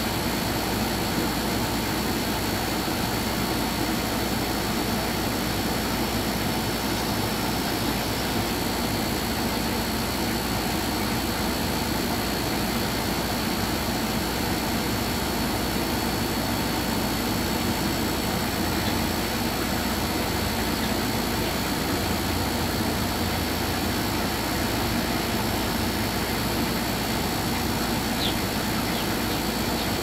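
A steady mechanical drone with a low hum, unchanging throughout. A few brief high bird chirps come near the end.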